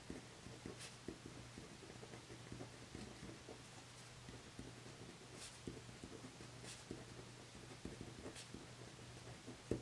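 Faint scratching of a 0.4 mm Hi-Tec-C gel pen writing on a paper card, stroke by stroke, with a few sharper ticks.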